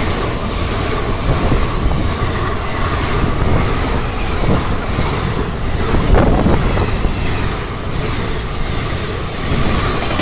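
Passenger train coaches running past close by at speed: a loud, steady rumble and rush of steel wheels on the rails, with a few sharper clacks as wheels cross rail joints.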